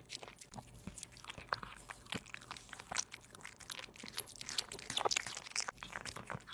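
A kitten chewing and biting meat close to the microphone: a run of quick irregular mouth clicks and smacks, busiest about five seconds in.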